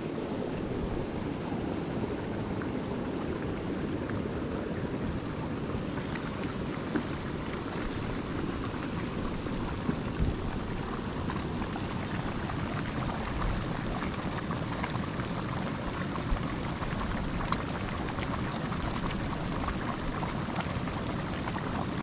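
Geothermal hot springs and mud pots bubbling and spitting, a steady dense sputter scattered with small pops.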